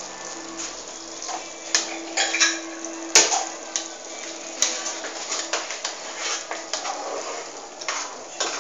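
Metal spatula scraping and knocking against a frying pan as a simmering sauce is stirred, with a few sharp clicks among the scraping. A steady hiss of the sauce bubbling runs under it, and a faint steady hum is there in the first half.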